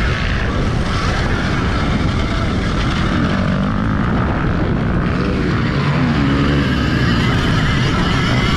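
Alta Redshift MXR electric motocross bike being ridden on a track: the electric motor whines, rising and falling in pitch with the throttle, under heavy wind and drivetrain noise on a helmet-mounted microphone.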